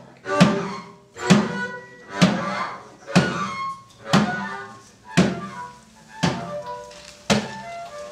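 Free-improvised ensemble music built on a heavy struck percussion hit about once a second, each one ringing out and dying away, with short pitched instrumental notes sounding between the hits.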